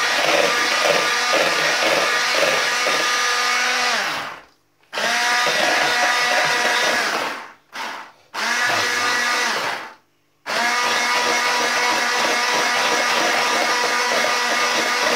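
Electric hand blender with a whisk attachment running steadily as it whips powdered whipped-cream mix in a plastic bowl. Several times around the middle the motor winds down, cuts out and spins up again: the blender has no lock-on and its button has to be held down.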